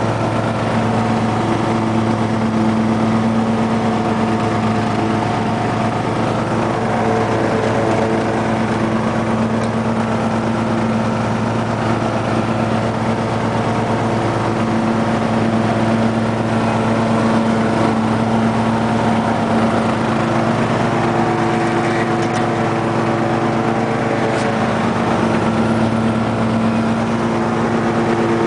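2007 Husqvarna lawn tractor's 15.5 hp Briggs & Stratton OHV engine running steadily at mowing speed with the cutting deck engaged in heavy grass. Its note sags and wavers slightly about twenty seconds in as the load changes.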